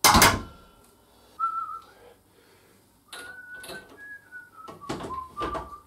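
A man whistling a short, wandering tune in a few phrases, with a few sharp knocks from handling things while he works. A loud, brief noise comes right at the start.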